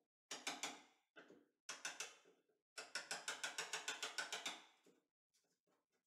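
Light hammer taps on a bevel-edged wood chisel cutting a hinge mortise into the edge of a beech door: three runs of quick taps, the last a fast string of about a dozen.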